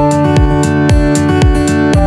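Background music: guitar over a steady beat of about two beats a second.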